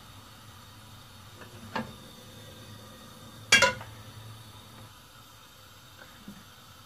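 Aluminium cooking pot knocking against the gas stove's iron grate as it is handled: a light knock about two seconds in, then a sharp, ringing metal clang about three and a half seconds in.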